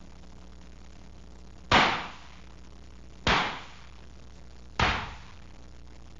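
Three preloaded stage flash pots firing one after another, about a second and a half apart; each is a sudden burst of flash powder that fades away over about half a second.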